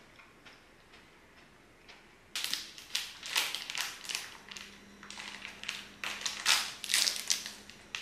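Plastic food packet crinkling and rustling in quick, irregular bursts as it is handled and opened, starting about two seconds in. Before that there are only faint, regular ticks.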